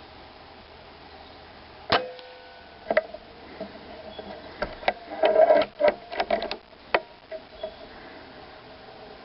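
A single sharp report from an Air Arms S510 PCP air rifle about two seconds in, with a brief ringing tone after it. About a second later comes a run of clicks and metallic rattles, busiest around the middle, as the rifle is handled.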